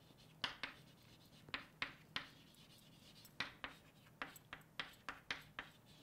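Handwriting: a dozen or so short scratching strokes of a pen or marker, coming in small groups.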